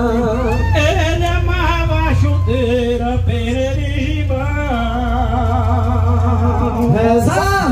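A man singing a vaqueiro toada into a handheld microphone, drawing out long wavering notes with vibrato and no clear words, over a steady low hum.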